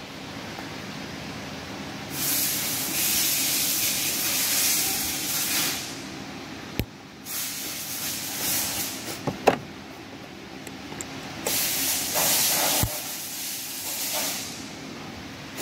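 Hissing spray in two long bursts of a few seconds each, with a few sharp clicks and knocks between them.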